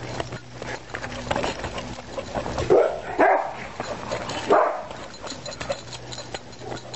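Dog barking a few short times, about three seconds in and again a second and a half later.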